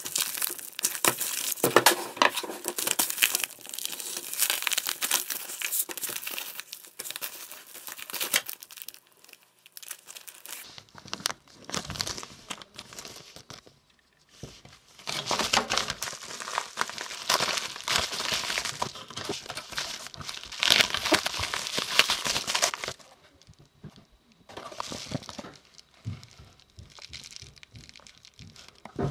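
Paper and plastic packaging crinkling and tearing as it is handled and opened, in several long stretches of crackling with short pauses between them.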